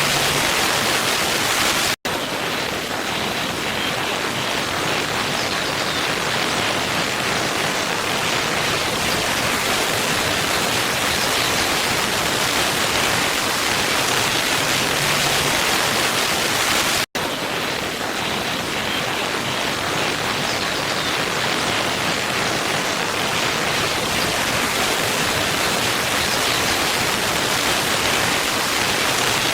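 Waterfall: steady rushing of falling water, broken by two momentary dropouts, about 2 seconds in and about 17 seconds in.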